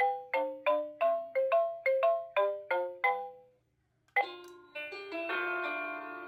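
Wireless doorbell receiver playing its built-in chime tunes. A quick melody of struck bell-like notes, about three a second, ends about three and a half seconds in. After a brief pause a different tune starts, with fuller, longer-ringing tones.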